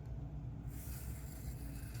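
A steady low background hum with no distinct handling clicks.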